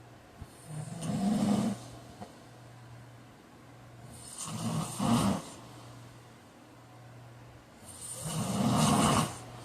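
A man snoring in his sleep: three loud snores about four seconds apart, the middle one coming in two pulses.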